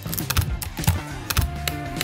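Background music with irregular light plastic clicks as LEGO Technic axles and beams are pushed together into a motor assembly.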